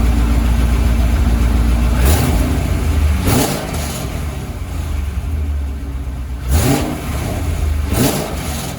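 C5 Corvette Z06's LS6 V8 idling, blipped four times so the revs rise briefly and fall back. The engine is being run to check the left exhaust gasket, which has been flipped 180 degrees and now seals.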